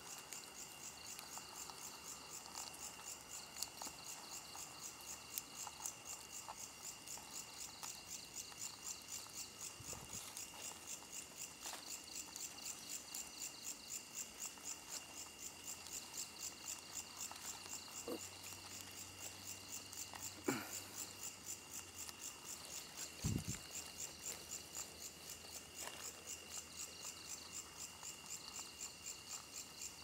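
Night insects calling: a steady high trill under a regular, rapidly repeating chirp, typical of crickets. A few sharp clicks and soft thumps break in, the loudest about twenty and twenty-three seconds in.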